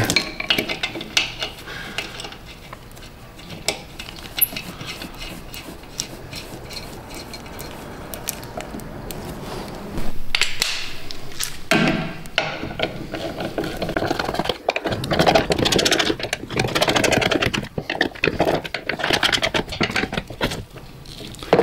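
Hand socket ratchet clicking as the bolts on a hydraulic tank lid are run down and snugged, with light metal clinks from the bolts and tools being handled. It is quieter in the first half, and the ratcheting comes in louder runs from about halfway.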